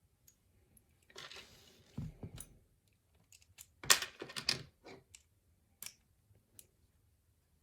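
Small metal lock parts being handled while a lock core is taken apart: a stretch of scraping with a couple of low knocks, then a louder cluster of clicks and rattles, and a few single sharp clicks after.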